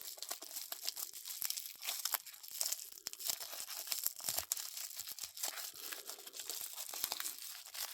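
Packing wrap around a pocket knife being torn open and crinkled by hand: continuous crackling and tearing with many sharp little clicks.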